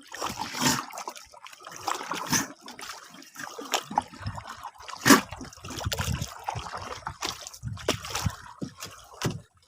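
Water splashing and trickling in irregular spurts, with sudden splashes scattered through.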